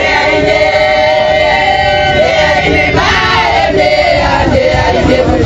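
A group of voices singing together in long held notes.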